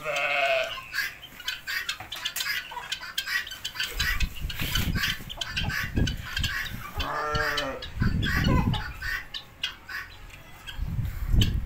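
Sheep and goats bleating: two calls, one right at the start and one about seven seconds in. Between them come scattered scuffs and knocks of movement and a few low rumbles on the microphone.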